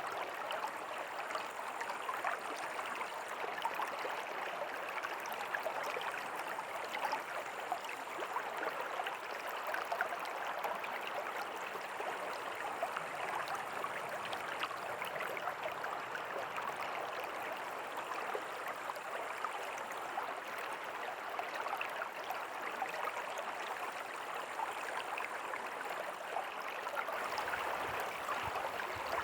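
A river's water flowing and babbling over stones in a steady rush, with fine splashing detail.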